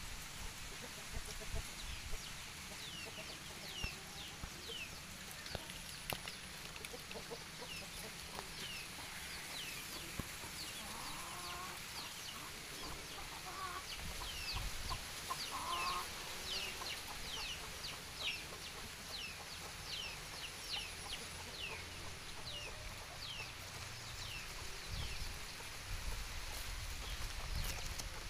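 Chickens clucking, with a few calls around the middle. Many short high chirps, each falling in pitch, repeat through the whole stretch.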